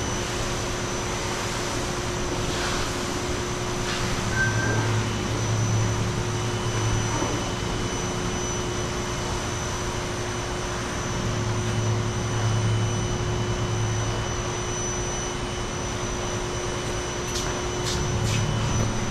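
Steady mechanical drone of a running machine, with a few faint clicks near the end.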